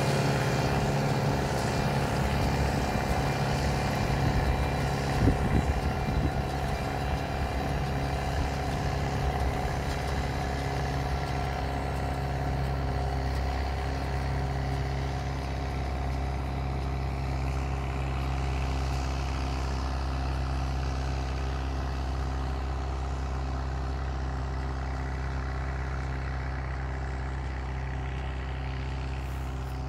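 Ford 5610 tractor's four-cylinder diesel engine running steadily while it pulls a Claas Rollant 46 round baler picking up hay, with a brief clatter about five seconds in. The sound grows fainter as the tractor and baler move away.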